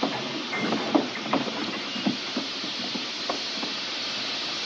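Steam locomotive standing with a steady hiss of steam, with irregular metallic knocks and clanks over it.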